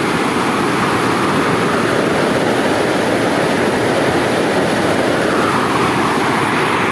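Water pouring over a dam's waterfall, a loud, steady rushing noise with no break or change.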